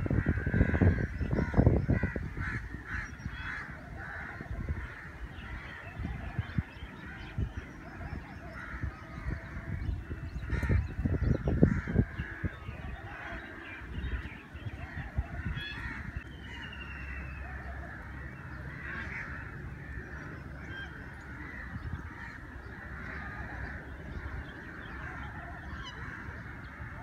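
Many birds calling together in a dense, steady chatter, with low rumbles near the start and again about eleven seconds in.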